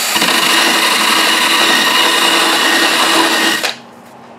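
Cordless drill spinning a golf ball core against a clamped wood rasp, grinding it down to size; the whirring rasp stops abruptly about three and a half seconds in as the ball is lifted off.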